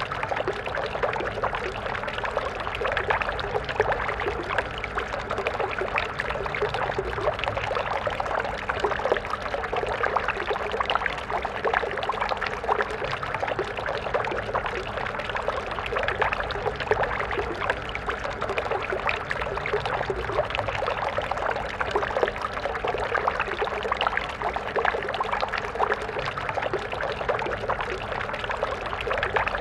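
Water stream flowing, a steady babble and splash of running water with many small irregular droplets and gurgles.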